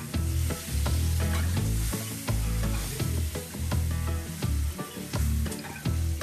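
Steel spoon scraping and knocking against an aluminium kadai as sorrel-leaf chutney is stirred into hot tempering, in irregular clicks several times a second, with a light frying sizzle and a steady low hum beneath.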